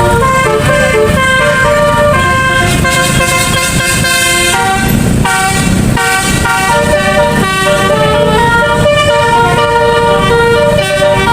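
Bus 'telolet' multi-tone air horn playing a quick tune of short stepped notes, with a brief break about four and a half seconds in, over a low rumble.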